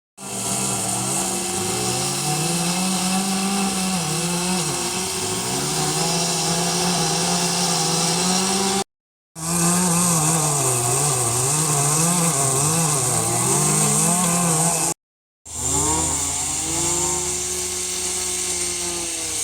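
Chainsaw cutting into wood, its engine pitch rising and falling over and over as the throttle is worked. The sound breaks off abruptly to brief silence twice and then resumes.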